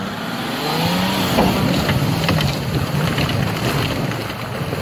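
Toyota Land Cruiser engine revving hard under load as it climbs a steep, muddy snow slope. Its pitch rises over the first second or so, then holds high and steady, with scattered sharp clicks.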